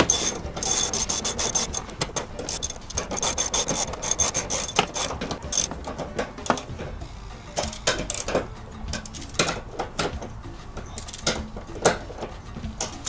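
Hand ratchet with a 14 mm socket and extension tightening a seat-mounting bolt, its pawl clicking rapidly in runs of quick back-and-forth strokes. The clicking is thickest in the first five or six seconds, then comes in shorter, sparser runs.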